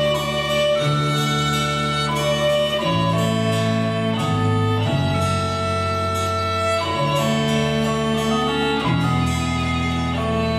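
A ceilidh band playing a tune: sustained melody notes over a bass and chords that change about every two seconds.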